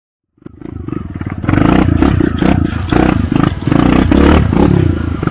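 Trail motorcycle engine running and revving in uneven surges. It fades in about half a second in and grows loud within the next second.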